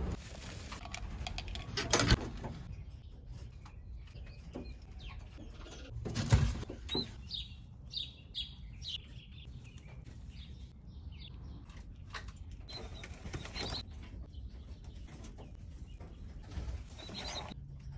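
Racing pigeons being handled, with wing flaps and feather rustling; two short sharp bursts stand out, about two and six seconds in.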